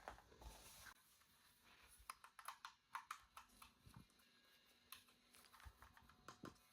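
Faint scattered clicks and light taps of small hard objects being handled, bunched together about two to three and a half seconds in, with a few more near the end.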